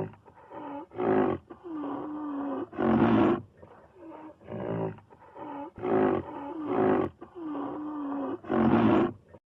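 Big cat roaring: four loud roars, about a second in, at three seconds, at six seconds and near the end, with lower, wavering growls between them. The sequence repeats halfway through, like a looped sound effect.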